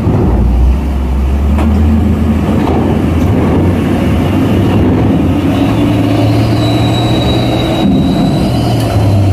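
Heavy truck's diesel engine running loud and low, with the high whistle of its turbocharger coming in about two-thirds of the way through.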